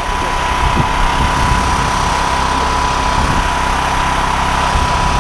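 Small engine running steadily, with a thin steady high tone over its hum.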